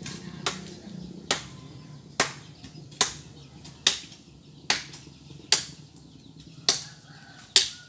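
A steady series of sharp knocks, nine in all, a little faster than one a second: repeated blows of a tool, chopping or hammering.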